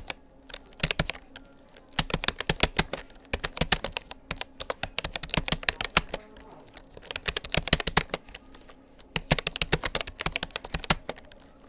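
Fast typing on a Rapoo computer keyboard: runs of rapid key clicks in bursts of one to two seconds, separated by short pauses.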